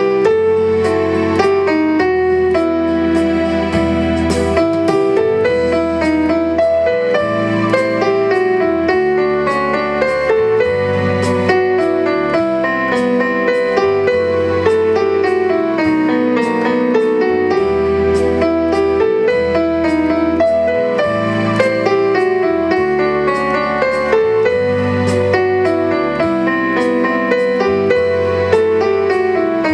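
Yamaha digital keyboard played with both hands in a piano voice: a flowing melody over chords and held bass notes, going on without a break.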